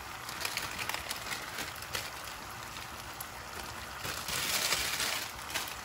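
Chicken pieces sizzling and crackling in a frying pan. The sizzle swells about four seconds in, then eases.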